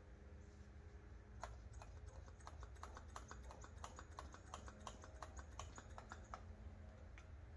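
Faint rapid clicking, several clicks a second starting about a second and a half in, from a hand brake-bleeding pump being worked over and over to draw old brake fluid out of the caliper. A low steady hum runs underneath.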